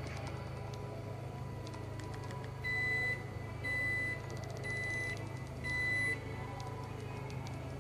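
A 2014 Jeep Grand Cherokee's power liftgate sounds its warning chime as the liftgate starts to close. The chime is four steady high beeps, each about half a second long, one a second.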